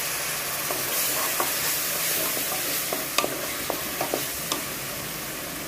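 Onions, green chillies and ginger-garlic paste sizzling in oil in an aluminium pressure cooker, stirred with a wooden spatula that knocks against the pot several times. The paste is being sautéed until its raw smell cooks off.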